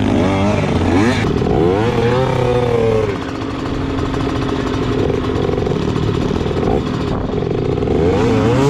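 Trail motorcycle engines revving up and down several times, then running steadily, with another rise in revs near the end.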